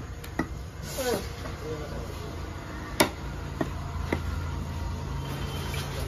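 Large fish knife chopping through a parrotfish onto a wooden chopping block: a few sharp knocks, the loudest about three seconds in, over background voices. A low steady hum starts just after the loudest chop.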